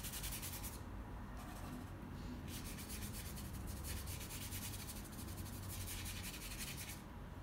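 Paintbrush scrubbing paint onto canvas paper in quick, short strokes, with a few brief pauses.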